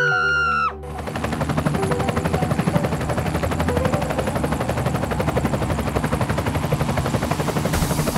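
Fast, steady helicopter rotor chopping for a toy rescue helicopter with its rotor spinning. It starts about a second in, just after a high held scream cuts off.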